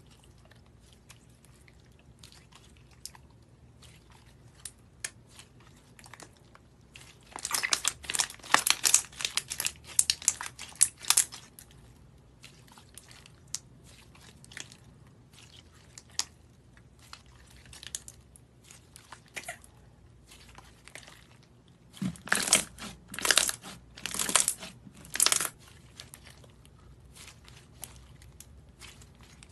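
Clear slime studded with pom-pom balls being squeezed and stretched by hand, giving sticky crackling and popping as air bubbles burst. Scattered small pops run throughout, with two spells of loud, dense crackling, one about a quarter of the way in and one past two-thirds.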